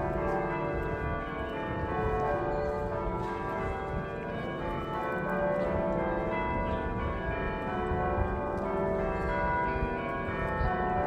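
Change ringing on York Minster's tower bells: a continuous, even stream of overlapping bell strikes, each one ringing on into the next.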